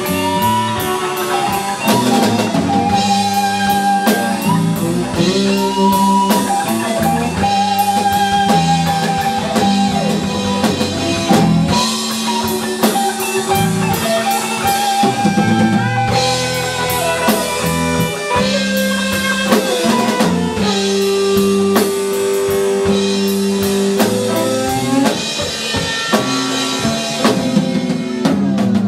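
Live rock band playing an instrumental passage: electric guitars over a drum kit, with one guitar playing long, wavering held notes above the beat.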